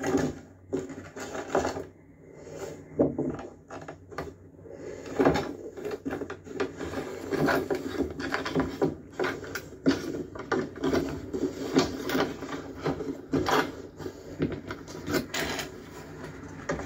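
Irregular knocks, taps and rubbing of things being handled and moved about, with several sharper knocks scattered through.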